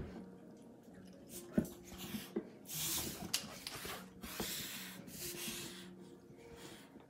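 English mastiff puppy breathing noisily through her nose as she noses a red rubber chew toy across a tile floor, with two longer breathy rushes and a few light knocks of the toy on the tiles.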